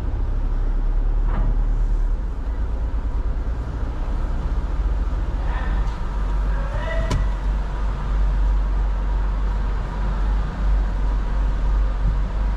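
A car's low, steady rumble heard from inside the cabin as it creeps forward at low speed on a ferry's vehicle deck. A short higher-pitched sound and a click come about six to seven seconds in.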